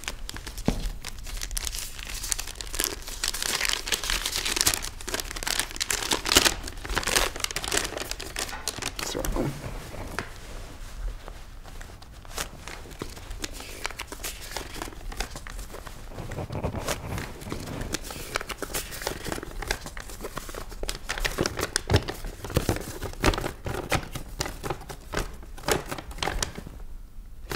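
Folded sheet of paper being handled and unfolded: a long run of irregular paper rustles and crinkles, busiest in the first several seconds.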